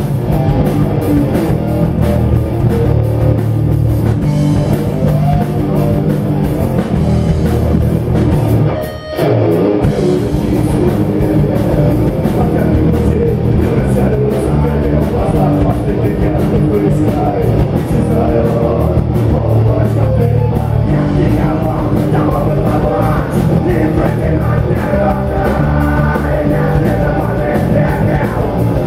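Live rock band playing a song with electric guitar and drums, loud and steady, with a brief break about nine seconds in.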